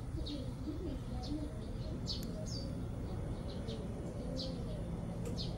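Small birds chirping, short high calls about once or twice a second, over a steady low background rumble.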